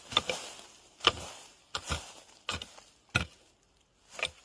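A hoe chopping into the soil to uncover a winter bamboo shoot: a run of about eight uneven, sharp strikes.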